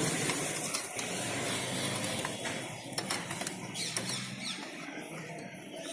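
Scattered light metallic clicks from a spanner working a motorcycle's chain-adjuster nut, over a low steady hum that fades near the end, with a few faint high squeaks.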